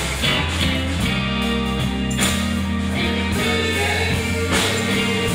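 Live rock band playing: electric guitars over bass and drums, with a sustained lead line on top.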